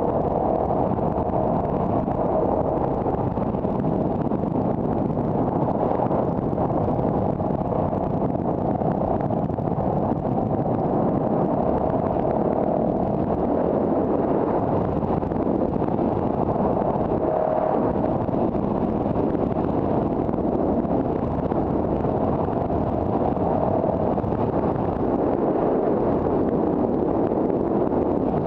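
Steady road and engine noise of a car being driven, with a faint hum that drifts slightly in pitch.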